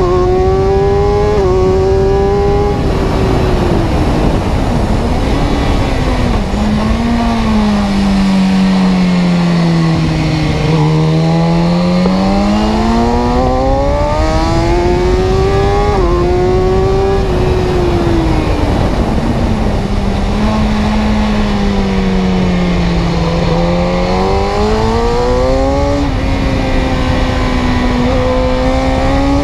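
Car engine running while driving, its pitch sinking and climbing several times as it slows and speeds up, with a few abrupt pitch steps at gear changes.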